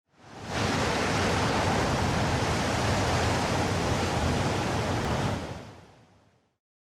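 A steady rushing noise with no tone or rhythm, fading in over about half a second and fading out from about five seconds in.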